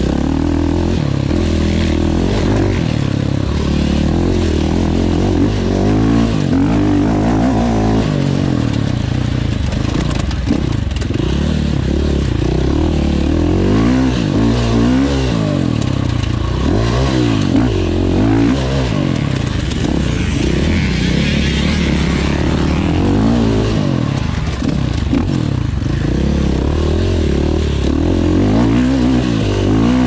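Enduro motorcycle engine running hard, its revs rising and falling again and again as the throttle is opened and closed.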